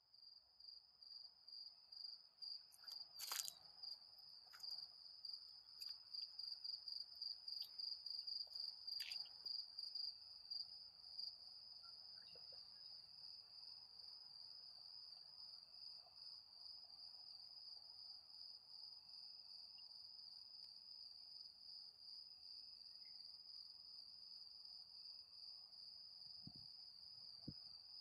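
Cricket singing a steady, high-pitched pulsing trill, with a few faint clicks in the first ten seconds.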